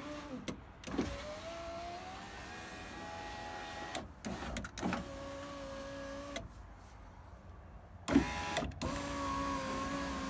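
2009 Renault Clio's electric window motor driving the newly refitted door glass in several runs, each a steady whine. Clicks and knocks mark each start and stop, and there is a short pause a little after halfway.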